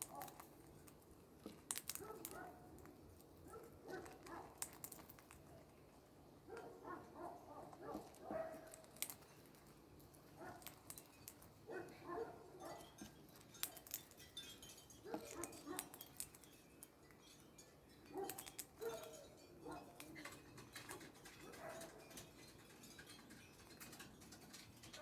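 A parrot eating: scattered sharp clicks of its beak on food, with short soft calls in between.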